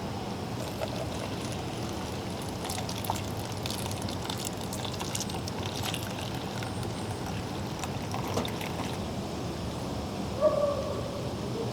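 Water being poured over ground coffee in a clip-on pour-over filter, trickling steadily through into the cup. A short pitched squeak comes near the end.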